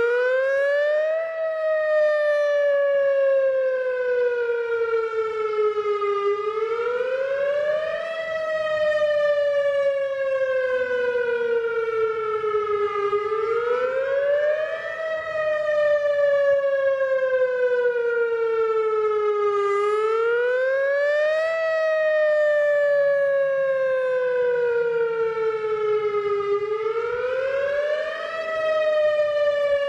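WS 2000 warning siren on test, sounding a slow repeating wail. Each cycle rises quickly for about a second, then falls slowly for about five seconds, repeating about every seven seconds.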